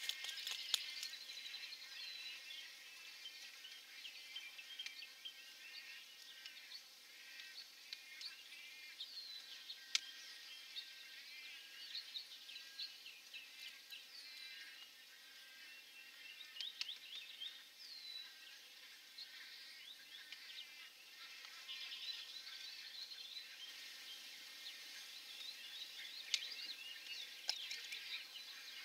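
Birds calling in a busy chorus of many short chirps and several clear downward-sweeping whistled notes, over a steady insect-like hum. A few sharp clicks stand out, one about a second in, one partway through and one near the end.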